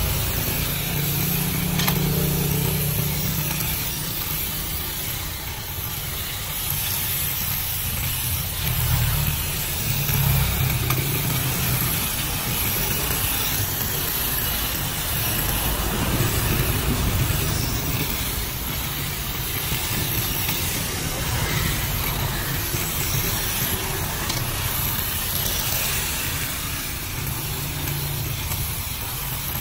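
Small 3.6 V cordless shrub shear with its short grass-shear blade buzzing steadily as its blades snip through leafy shrub twigs, over a low, uneven rumble.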